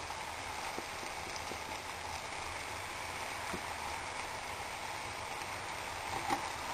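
Tomato sauce sizzling steadily in a frying pan on the stove, with a few faint pops.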